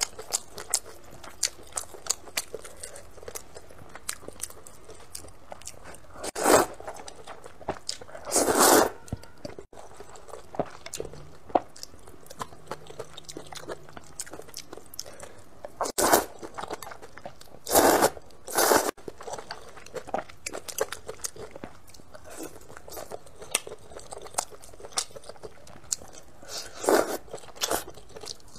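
Close-miked eating of spicy snail rice noodles: a steady run of small chewing and biting clicks, with about six louder slurps of noodles spread through.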